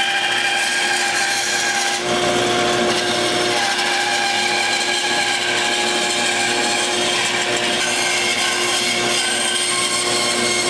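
Bandsaw running steadily as its blade cuts a curved outline through a thick red alder board.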